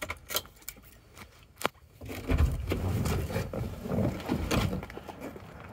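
Handling noises in a van's cab: a few small clicks and one sharp click about a second and a half in, then rustling and dull knocks from about two seconds in.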